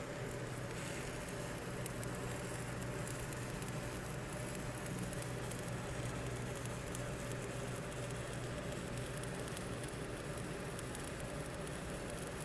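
Stick (SMAW) welding arc on pipe, a steady crackling sizzle with no break, over a steady low hum.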